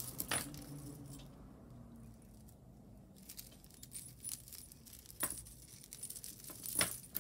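Costume jewelry clinking lightly as pieces are picked through by hand, with a few sharper metallic clicks.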